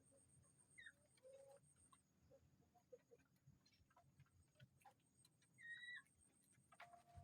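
Near silence with a few faint, short bird calls and scattered faint clicks; the clearest call comes a little under six seconds in.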